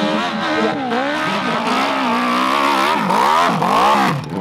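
Dirt bike engine revving up and down on a steep hill climb, the pitch swinging with the throttle. About three seconds in, the revs rise and fall faster and sharper as the bike struggles up the steepest part of the slope.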